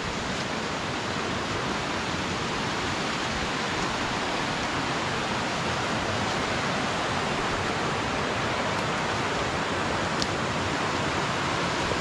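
Steady rush of a rocky river's water tumbling over small cascades and rapids, an even sound with no rise or fall.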